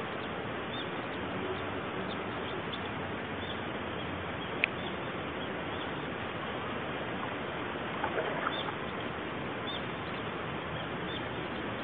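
Shallow mountain river running over stones, a steady rushing hiss, with faint short bird chirps above it. One sharp click about four and a half seconds in, and a few faint knocks around eight seconds.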